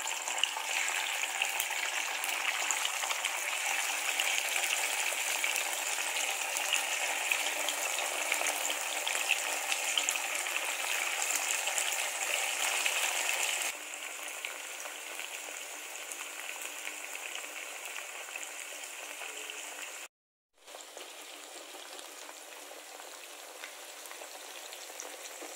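Masala-coated eel pieces sizzling and crackling as they shallow-fry in hot coconut oil in a nonstick kadai. The sizzle is louder at first, drops abruptly to a quieter steady sizzle about fourteen seconds in, and breaks off briefly near twenty seconds.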